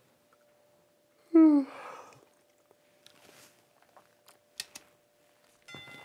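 A man's exaggerated groaning sigh that falls in pitch, about a second in, followed by faint rustling and a few sharp clicks.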